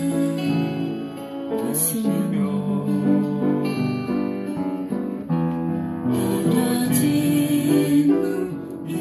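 Upright piano played by ear together with acoustic guitar, a slow song in sustained chords and melody notes.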